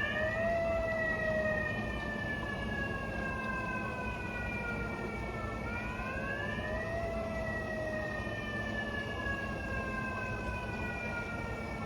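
Megaphone's built-in siren sounding as a severe-thunderstorm warning. Its wail rises quickly, then sinks slowly over about five seconds, and sweeps up again about six seconds in.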